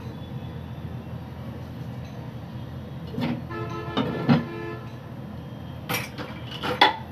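Steady sizzle of sweets frying in oil on a gas stove. A steel pot lid is lifted off with a knock and a ringing metallic tone lasting about a second, then set back down with two clanks near the end.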